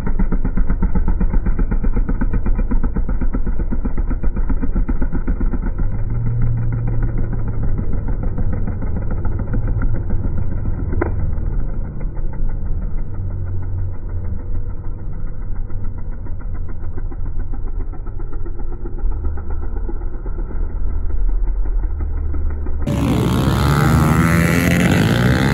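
Several small four-stroke pit bike engines running and revving as the bikes ride past, sounding muffled.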